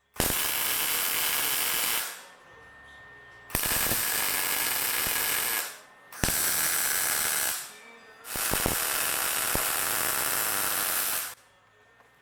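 Electric arc welder laying four short weld beads on a steel bracket, each a steady crackling hiss that starts and stops abruptly, with short pauses between.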